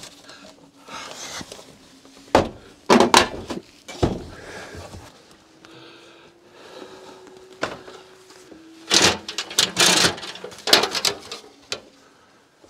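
Knocks, scrapes and clatters of old eave trim being worked free and handled by hand, in two bursts, about two seconds in and again around nine seconds in; a faint steady hum in between.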